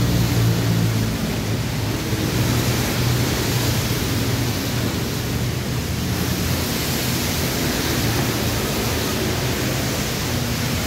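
Steady hiss of rain, with a low hum underneath.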